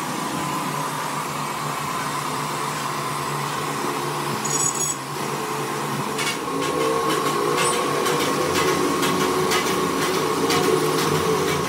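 A small motor whirring steadily with a constant whine and a low hum, in the manner of an air blower or fan. From about six seconds in, light clicks and crackles sound over it.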